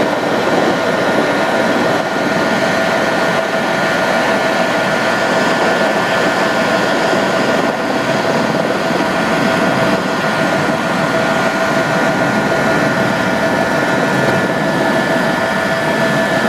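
Steady aircraft engine noise heard from inside the cabin, a constant drone with an even high whine running through it.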